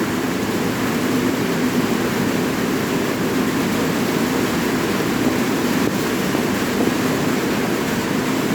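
Steady rain: an even, unbroken wash of noise with most of its weight low down and no single drops standing out.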